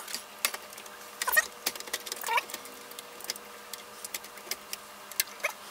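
Irregular clicks, knocks and short scrapes of the front panel and metal chassis of an HP 8165A signal source being handled and pushed together.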